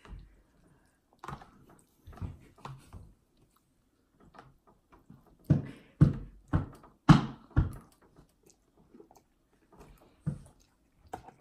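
A man chewing a mouthful of ramen noodles, with short mouth sounds throughout and a cluster of louder ones about halfway through.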